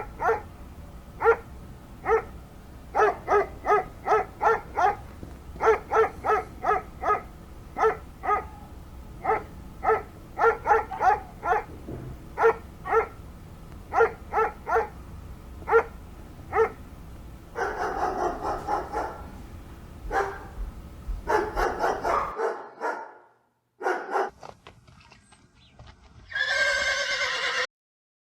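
A dog barking over and over in quick runs of short barks, followed by a few rougher, longer calls. After a sudden cut, a horse whinnies briefly near the end.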